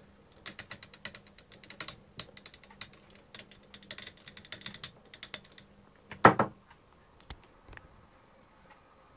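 Quick runs of light metallic taps from a screwdriver on an automotive knock sensor, tapping it to test its output. The tapping stops about five and a half seconds in, and a single louder knock follows soon after.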